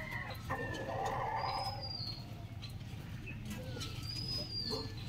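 Flock of chickens calling: short high chirps and peeps with some clucking, over a steady low hum.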